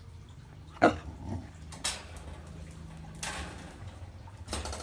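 A puppy gives one sharp bark about a second in, its pitch falling, followed by a few quieter short noises.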